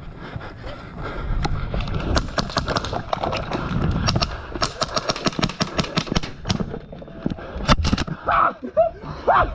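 Airsoft guns firing: rapid strings of sharp cracks, packed tightest in the middle, over a low rumble of handling and movement on the camera. Brief shouts come near the end.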